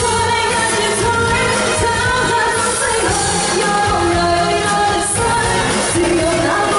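A singer performing a Chinese pop song over a live band, with sustained sung notes carried on a full, steady accompaniment.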